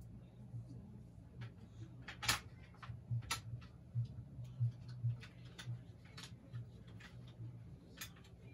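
Scattered clicks and small knocks of plastic parts being handled as a battery is fitted into a small light, over a low steady hum.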